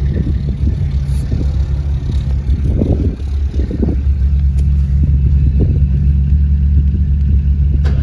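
An engine running steadily with a loud, low hum, with a few light rattles and clicks about three and four seconds in.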